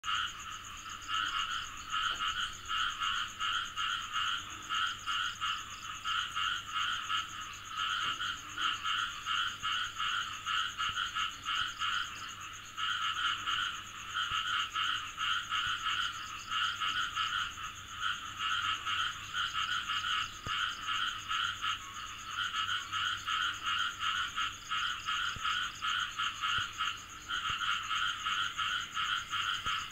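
Frog calling from a shallow pond: fast pulsed croaks in repeated bouts of a second or two with short breaks between, over a steady high-pitched hum.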